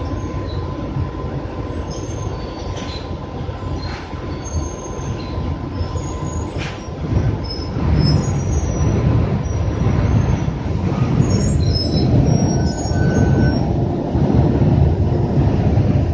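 Interior ride noise of an empty RTS transit bus in motion: the engine and running gear rumble under a thin steady whine, with short, scattered squeaks and rattles from the body and seats. The rumble grows louder about halfway through.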